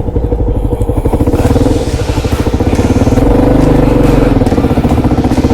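Kawasaki KLR650's single-cylinder four-stroke engine running at low revs with a steady pulsing beat, the revs rising a little around the middle.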